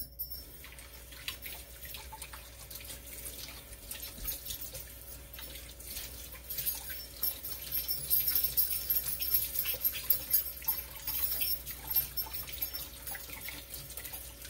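Kitchen tap running while the tea infuser is rinsed out under it, water splashing with small knocks, heavier through the middle stretch.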